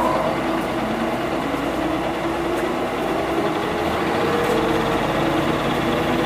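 Running sound of a Mitsubishi Fuso Aero Star (QKG-MP38FK) city bus's diesel engine, heard from inside the bus, with the engine note rising slowly as the bus pulls along.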